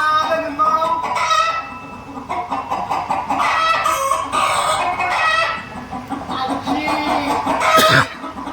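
Hen-like clucking: a run of repeated calls, with a sharp knock near the end.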